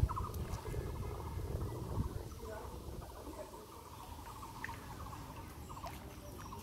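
Floodwater sloshing and dripping around a cast net as it is drawn in by hand through shallow water, with faint squeaky chirps throughout.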